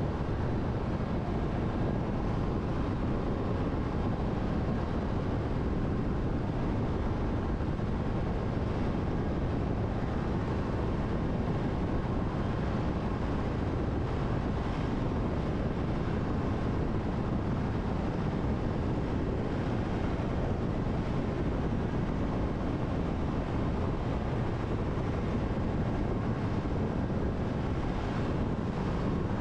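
Steady road noise of a car cruising at expressway speed: an even rumble of tyres and wind that does not change.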